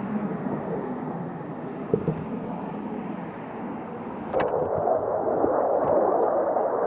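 Jet aircraft flying overhead: a steady rushing engine noise that changes abruptly about four seconds in to a louder, brighter rush as the footage switches to a fighter jet.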